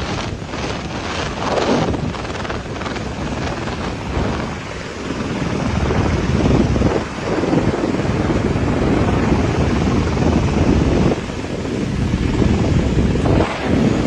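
Swollen river in flood, its water rushing loudly and without a break, with wind buffeting the microphone.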